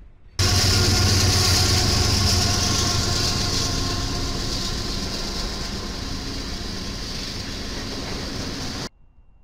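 Union Pacific diesel freight locomotives passing close and pulling away: a deep engine drone with steady wheel and rail noise, slowly fading. It starts suddenly under a second in and cuts off suddenly near the end.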